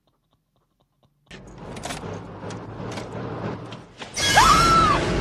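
Sci-fi action film soundtrack: a rumbling, clattering noise of machinery starts after a second of silence, then a loud scream, its pitch rising and falling, breaks in about four seconds in.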